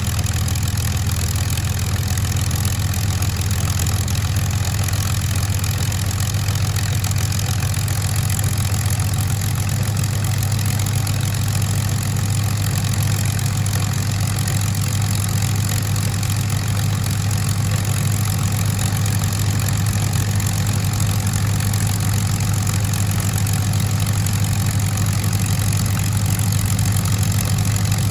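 De Havilland Mosquito's Rolls-Royce Merlin V12 engines idling after start-up: a steady, deep drone that holds an even pitch and level throughout.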